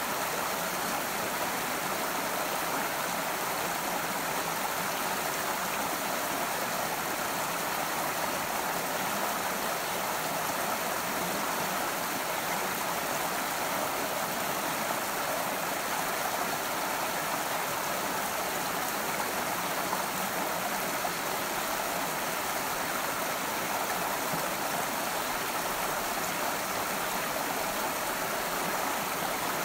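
A rocky creek running steadily over stones: an even, unbroken rush of flowing water.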